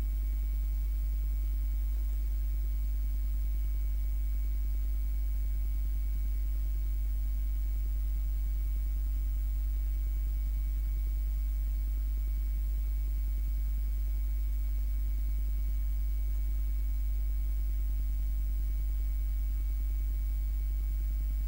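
Steady low electrical hum, unchanging throughout, with no other sound.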